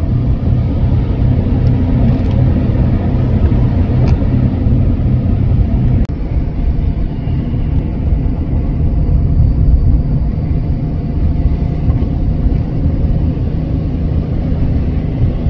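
Steady low rumble of a car driving down a snow-covered highway: tyre and engine noise, with a short dip about six seconds in.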